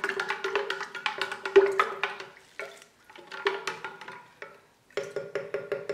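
A long spoon stirring lemon juice concentrate and sugar in a large glass jar, clinking rapidly against the glass, which rings with each stroke. The stirring pauses briefly twice around the middle and picks up again near the end.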